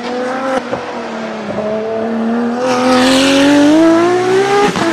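Ferrari race car engine accelerating hard along a racetrack, its note rising steadily in pitch and growing loudest as it goes past. A short break near the end drops the pitch as it shifts up.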